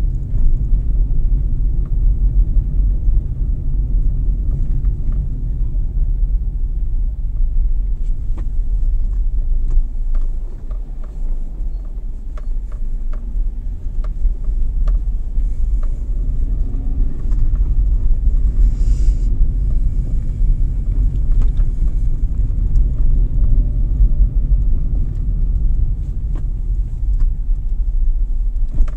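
Steady low rumble of a car driving along a street, heard from inside the cabin, with a few faint clicks.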